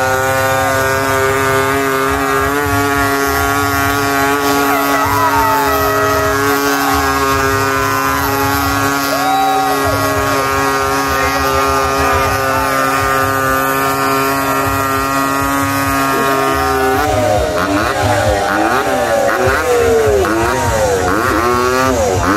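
Kawasaki two-stroke triple motorcycle doing a burnout: the engine is held at steady high revs with the rear tyre spinning, then about seventeen seconds in it is revved up and down again and again.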